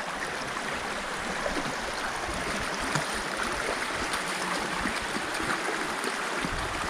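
Rock Creek's water running over rocks: a steady rush of flowing stream water.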